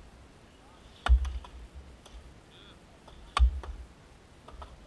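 Axe chopping into a 12-inch aspen log in an underhand chop: two heavy strikes a little over two seconds apart, each followed by a few lighter knocks.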